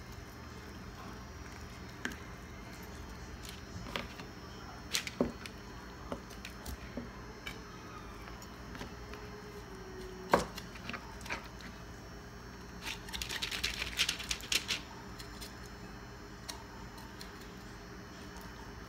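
Kitchen knife scraping raw turkey wing meat off the bone and tapping on a plastic cutting board: scattered clicks and knocks over a steady low hum, the loudest knock about ten seconds in and a quick run of small clicks a few seconds after.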